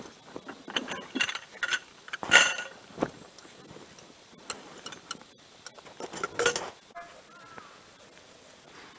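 Military camping gear being handled and rummaged through: rustling with light metallic clinks and rattles, in a cluster over the first three seconds that peaks about two and a half seconds in, and another burst around six seconds in.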